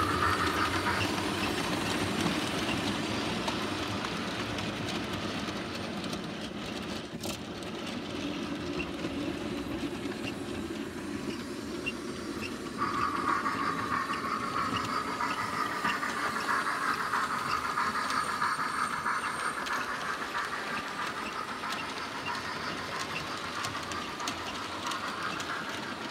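00 gauge model trains running on the layout: a steady hum with a slowly wavering pitch and light clicking of wheels over the track. The hum drops away about a second in and comes back suddenly about halfway through, and there is a single sharp click about seven seconds in.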